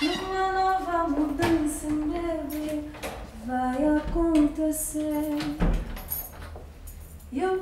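A woman singing a slow melody in long, held notes that step up and down in pitch. A few short knocks and clicks from the front door come in between.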